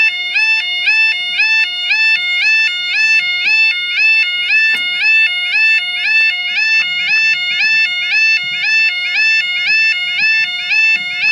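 Railway level crossing's electronic two-tone 'yodel' warning alarm sounding loudly. It steps steadily back and forth between a high and a low note, about one and a half cycles a second, warning that the barriers are down.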